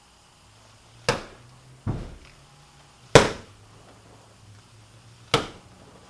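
Four sharp snaps of hammer fist strikes being thrown, irregularly spaced about one to two seconds apart, each dying away quickly.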